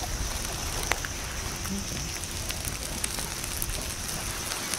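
Bonfire of paper and plastic waste burning, crackling with scattered sharp pops over a steady high hiss.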